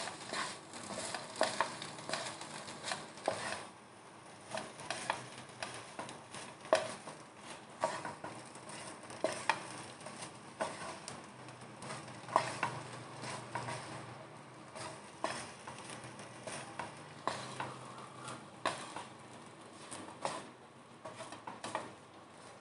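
Wooden spatula stirring and scraping bread cubes and spice masala around a non-stick frying pan, with irregular knocks against the pan about once a second over a faint sizzle of frying.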